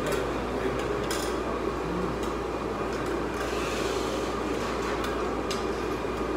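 Scattered clinks and clatter of plates and cutlery at a dining table, over a steady room hum.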